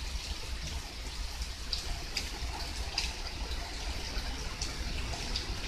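Heavy rain pouring down steadily, with scattered short taps of drops hitting close by.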